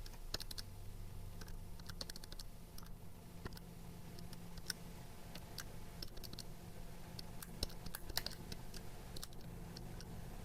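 Calculator keys pressed in an irregular run of faint clicks while a calculation is worked out, over a low steady hum.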